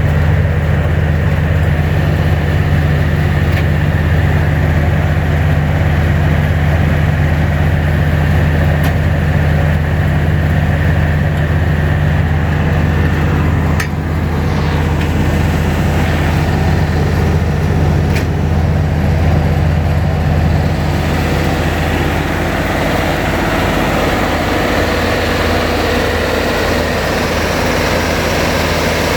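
The 2011 Brush Bandit 90XP wood chipper's Cat four-cylinder turbo diesel runs at a steady speed with a deep, even note. About two-thirds of the way through the note loosens and settles slightly quieter.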